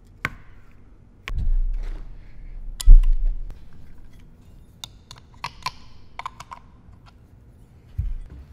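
Handling noise from a pneumatic angle grinder and flap discs on a carpeted workbench: scattered light clicks and knocks, with heavy thumps a little over a second in and at about three seconds, the second the loudest, and another near the end.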